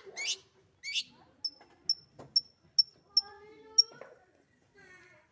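Long-tailed shrike (cendet) calling: two harsh downward-sweeping notes early on, then a run of six short, high, clipped notes at about two a second. Fainter, lower wavering sounds come in near the middle and the end.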